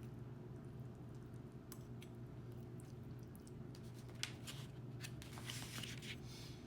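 Faint steady low hum, with scattered small clicks and a short rustle in the second half: close handling noise as food and packaging are moved about.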